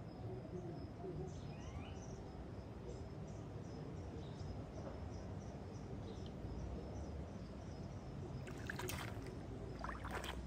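Shallow river water running steadily, with faint high chirps repeating a few times a second in the first half. Near the end come a few splashes as hands lift and set stones in the water.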